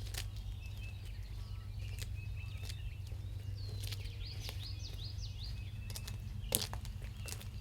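Small birds chirping and trilling over a steady low rumble, with a few sharp clicks, the loudest about six and a half seconds in.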